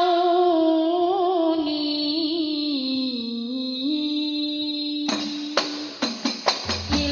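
Solo voice singing a long, ornamented melody with held, gliding notes. About five seconds in, the group's rebana frame drums come in with quick rhythmic strikes, and a low bass tone joins near the end.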